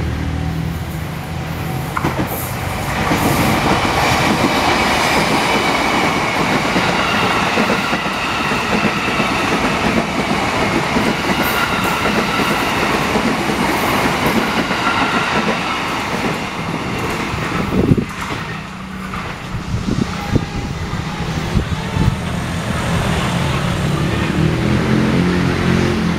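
A TM 6000 Series electric commuter train passing over the rails, with wheel clatter and a high steady whine, that stops abruptly about 18 seconds in. After it, motorcycle engines run as road traffic moves over the crossing, with a few sharp knocks.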